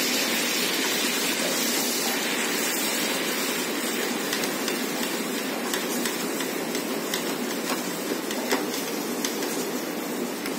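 Pineapple juice sizzling and bubbling in a hot frying pan of caramelized brown sugar, stirred with a wooden spatula that gives a few faint scrapes. The sizzle slowly eases off.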